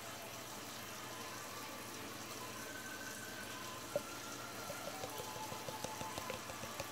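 Small wet squishing clicks as a cut-open squishy glitter bouncy ball is squeezed by hand. They start about four seconds in and come several times a second near the end, over a steady low hiss.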